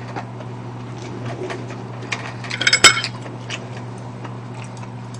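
Chopsticks tapping and clinking against ceramic bowls as food is picked up: scattered light taps, a quick run of clinks with one sharp clink a little before halfway, over a steady low hum.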